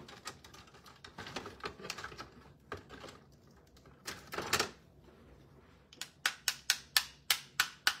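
Soft handling sounds, then from about six seconds in a rapid, even run of sharp plastic clicks, roughly four a second. The clicks are a white Posca acrylic paint marker being tapped against a clear ruler to flick white paint spatters onto cards.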